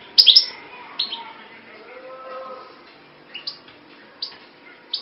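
Small bird chirping: a loud pair of short, sharp, falling chirps near the start, then single chirps every second or so, over a steady hum.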